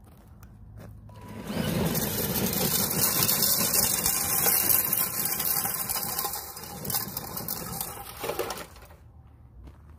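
Electric motor and drivetrain of a Tamiya Bullhead RC monster truck running hard under load. The truck is dragging a weighted pull sled whose skid scrapes and crunches over gravel. The noise starts about a second in and stops near the end.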